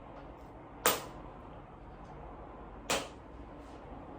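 Chiropractic impulse adjusting instrument firing twice, two sharp clicks about two seconds apart, each a quick thrust into a tight joint.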